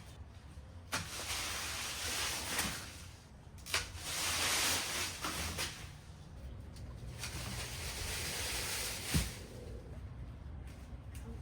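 Leafy mulberry branches rustling as they are handled and pulled, with three sharp snips of pruning shears. A low steady hum runs underneath.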